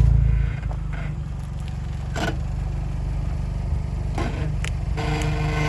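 Jeep engine running at low speed while crawling off-road, louder at first and easing off about half a second in, with a few short crunches and clicks from the tyres and underside on the terrain.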